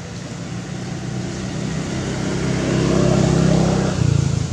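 An engine running steadily. It grows louder over the first three seconds and changes note near the end.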